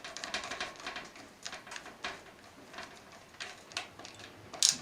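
A screw being turned into a metal computer case: a series of small irregular clicks and scrapes, with a brief sharper scrape near the end.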